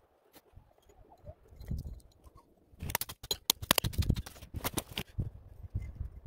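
Hatchet chopping dead lower branches off a spruce trunk: a quick series of sharp knocks, starting about three seconds in and lasting about two seconds.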